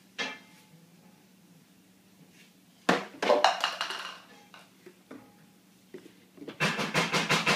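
Plastic lid and containers clattering and knocking together in a kitchen drawer as a child handles them: one knock just after the start, a burst of rattling about three seconds in, and a quicker run of clicks and knocks near the end.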